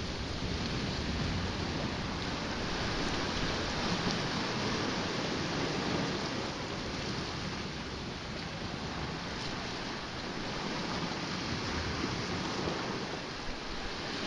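Sea washing against a rocky shore, a steady rushing noise, with wind buffeting the microphone.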